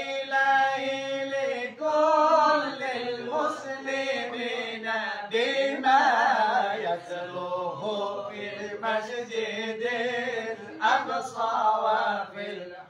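Unaccompanied male singing of an Arabic sholawat devotional chant, with long held notes that waver and run through melismas.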